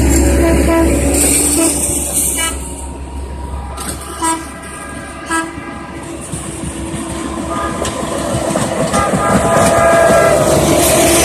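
Railroad maintenance-of-way equipment running along the track: a steady rail rumble with held, pitched tones over it. The sound dips in the middle, where there are two sharp knocks about a second apart, and then builds again toward the end.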